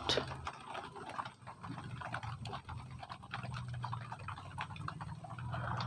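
Faint handling noise: soft ticks and rustles of a hand and pen moving over a paper sheet, over a low steady background hum.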